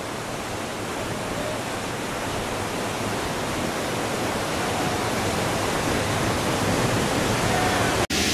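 Steady rushing roar of a big whitewater rapid, slowly growing louder, with a sudden brief break in the sound near the end.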